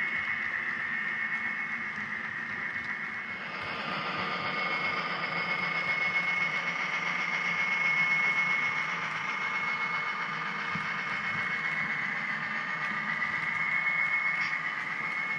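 Model coal train rolling along the track behind a GM&O GP35 model diesel locomotive: a steady whir of wheels and motor with a constant high tone. It swells as the locomotive passes about eight seconds in.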